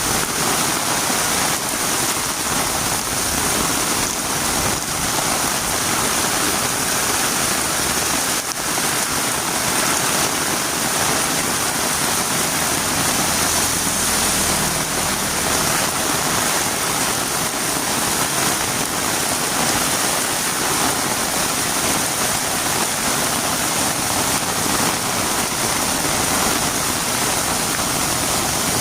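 Heavy rain falling steadily on a road, a dense even hiss. About halfway through, a low rumble swells briefly underneath it.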